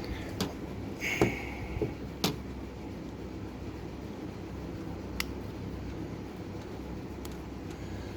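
A steady low mechanical hum with a handful of sharp clicks and taps of handling: a loud one about a second in with a short hiss, another near two seconds, and a lighter one about five seconds in.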